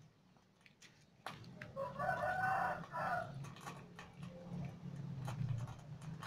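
A rooster crowing once, a call of about a second and a half starting around two seconds in. Light clicks and rustles of the pastry wrapper and plastic wrap being handled.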